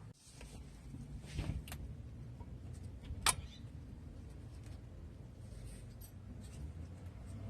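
A few sharp clicks and knocks of hard objects being handled, the loudest about three seconds in, over a low steady rumble.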